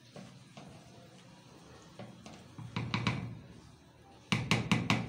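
Wooden spoon knocking against an aluminium cooking pot: a few knocks about three seconds in, then a quick run of about six sharp taps near the end, the loudest sounds.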